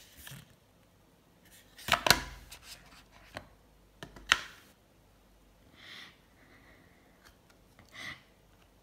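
Hands handling an opened iPhone box and the film-wrapped phone in its tray: a few sharp clicks and knocks, the loudest about two seconds in and another just after four seconds, with faint rustling later on.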